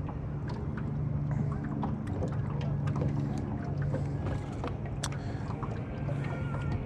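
A small fishing boat's motor runs with a steady low hum, and light water sloshing and small clicks and knocks sound on the hull.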